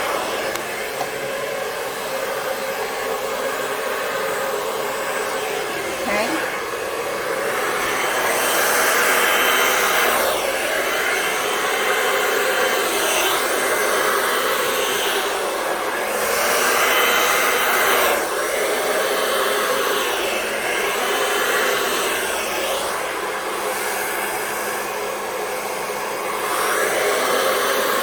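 Hand-held hair dryer blowing steadily, pushing wet acrylic pour paint across a canvas; the rush of air swells and eases in loudness, a little louder after about eight seconds.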